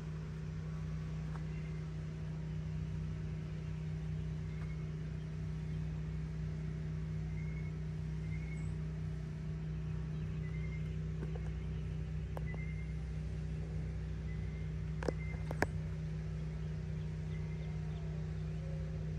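Kawasaki Ninja 400's parallel-twin engine idling steadily. Two sharp clicks come about fifteen seconds in, and faint short chirps are heard now and then.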